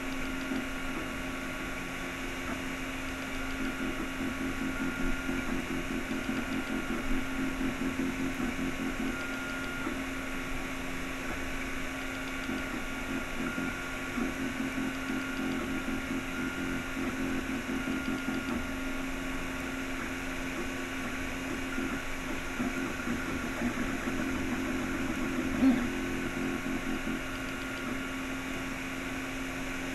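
Anet A8 3D printer printing. Its stepper motors buzz in a fast, changing pattern as the hotend moves, and a higher whine comes and goes with the moves, over the steady hum of the cooling fans. There is one brief louder blip near the end.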